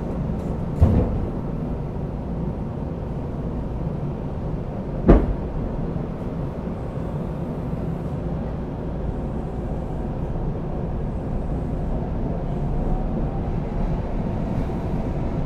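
Interior sound of a Shinkeisei Series 8900 electric train's motor car with Mitsubishi IGBT-VVVF traction: a steady low rumble. Two sharp knocks come about one second and five seconds in, and a faint rising whine comes toward the end.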